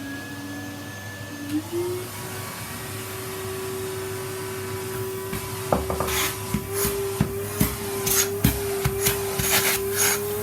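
Numatic Henry canister vacuum cleaner running. Its motor hum rises in pitch over the first couple of seconds, then holds steady, and from about halfway through the brush nozzle knocks and scrapes against the surface being cleaned.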